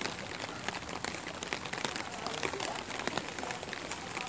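Steady rain, its drops pattering densely on a clear plastic umbrella close overhead.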